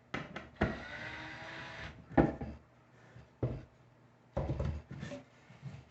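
Screws being driven into a pine workpiece: a power drill-driver runs for about a second and a half starting about half a second in, followed by a few knocks and clunks as the wooden parts and screws are handled.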